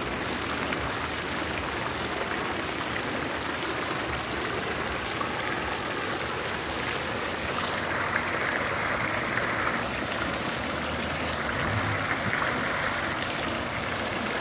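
Fountain jets splashing steadily into the basin: a continuous rush of falling water, a little louder about eight seconds in and again near the end.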